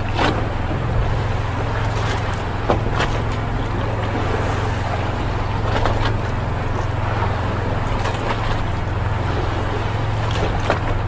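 A small engine running steadily with a constant low hum, over a wash of water and wind noise, with a few sharp knocks and clicks from fishing gear being handled.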